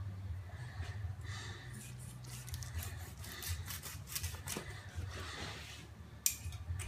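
Quiet rasping strokes of a carving knife sawing through the charred crust of a grilled pork loin and scraping the plastic cutting board, with a sharp click near the end over a steady low hum.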